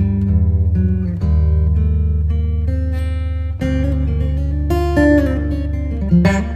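Background music led by acoustic guitar, with plucked notes over a steady bass.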